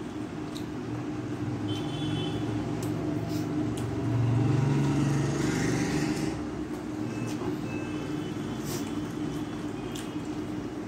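A motor vehicle's engine passing, swelling to its loudest about halfway through and then fading, over a steady hum. Faint clicks of fingers working rice on a steel plate.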